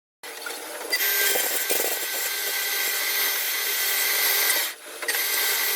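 Power tool working wood, running with a steady high whine over a loud rasping hiss. It grows louder about a second in, cuts out briefly near the end, then starts again.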